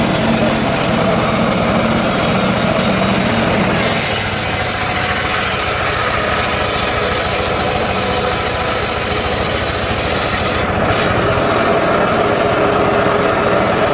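Small engine driving a homemade circular saw rig, running steadily; about four seconds in the sound turns brighter and hissier and stays so.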